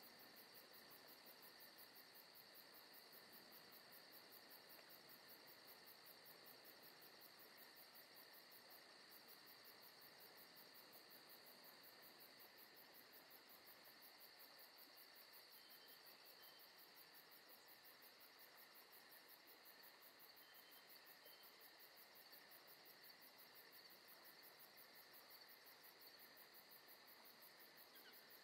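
Near silence with a faint, steady chorus of chirping insects, a fast even pulsing that does not change.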